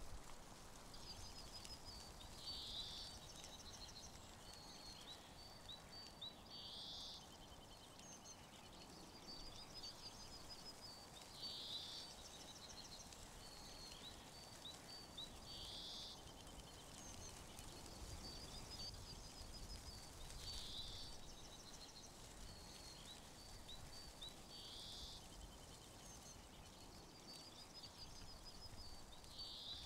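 A small songbird faintly singing the same short, high phrase over and over, a run of quick notes ending in a brighter flourish, about every four to five seconds, over a soft woodland hush.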